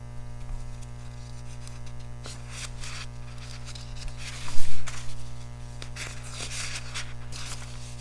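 Sketchbook paper rustling as a page is handled and turned, with a louder rush of paper about four and a half seconds in, over a steady electrical hum.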